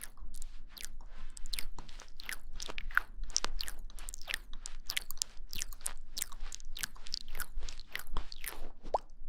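Close-miked ASMR mouth sounds: a steady run of wet clicks and smacks, several a second, which stop abruptly near the end.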